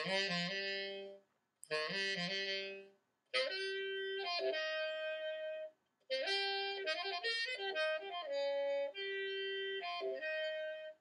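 Background music: a melody on a wind instrument, played in short phrases with brief pauses between them.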